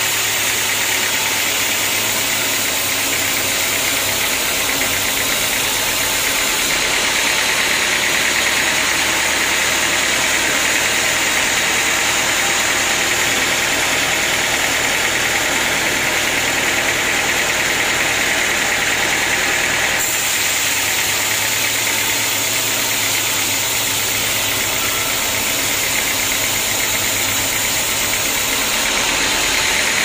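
Band sawmill running steadily while its blade cuts lengthwise through a large teak log: a continuous mechanical hum with saw noise on top, a little louder through the middle of the cut.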